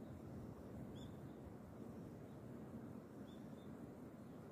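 A few short, high bird chirps, one about a second in and two close together past the three-second mark, over a faint steady low rumble.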